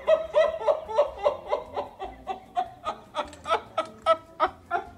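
A man laughing hard, a long unbroken run of 'ha's at about three a second, in amazed disbelief at a trick he has just seen.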